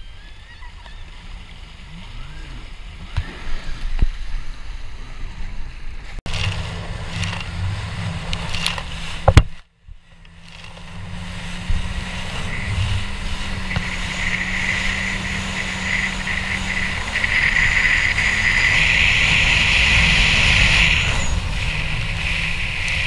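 Jet ski engine running steadily at speed, a constant low drone with the rush of water spray and wind over the mounted camera; the spray hiss swells in the second half. The first few seconds hold only a quieter wash of sea water, and a single sharp knock comes about nine seconds in, just before a brief drop-out.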